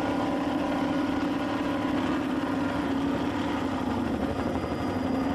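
Offshore racing powerboat engines running steadily at low speed, a continuous drone whose pitch sags slightly and recovers around the middle.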